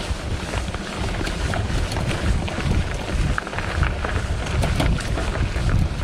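Wind rumbling on the microphone while a mountain bike rolls along a dirt trail, with frequent short clicks and rattles from the bike.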